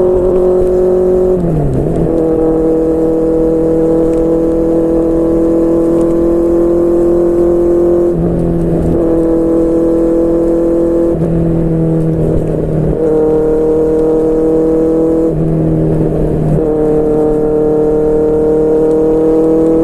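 QJMotor SRK600's inline-four engine through a Yoshimura R11 exhaust, riding on part throttle through several gear changes. The revs dip briefly at each shift, then climb slowly.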